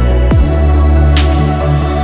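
Electronic wave/phonk music: heavy sustained bass and synth chords with hi-hat ticks and a snare hit, a falling bass drop about half a second in.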